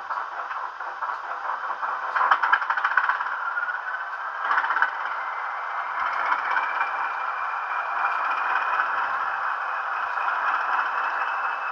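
Sound-fitted Bachmann Class 20 model locomotive playing its diesel engine sound through its small onboard speaker. It clatters in two bursts near the start, then a whine rises in pitch and settles into a steady engine note.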